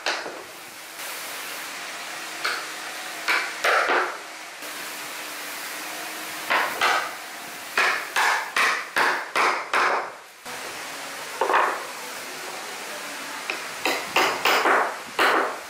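Hammer blows and wooden slats knocking on a plywood sheet as pine frame pieces are set out and fitted together: clusters of sharp wooden knocks, including a quick run of five or six strikes midway and another run near the end.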